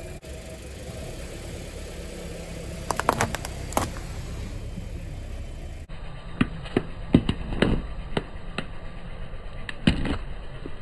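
Car engine idling low while a tire rolls over and crushes brittle objects: a cluster of sharp cracks about three seconds in, then, after a cut near the middle, a run of cracks and pops.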